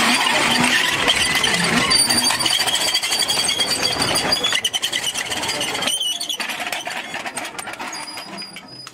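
A row of metal prayer wheels squeaking and clattering on their spindles as a hand spins them one after another, with high-pitched squeals. The sound fades out near the end.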